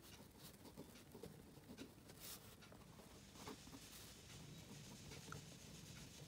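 Pen writing on notebook paper: faint, scratchy strokes with small scattered ticks.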